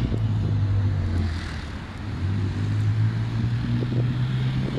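A low, steady mechanical drone that dips briefly about two seconds in, with a few faint clicks over it.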